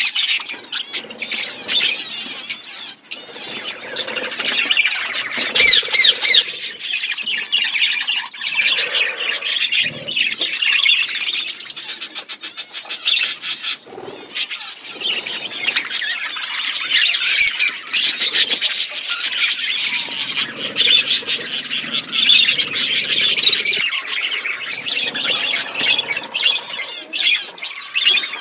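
A flock of budgerigars chattering: many overlapping chirps, warbles and squawks, with bursts of fast clicking trills.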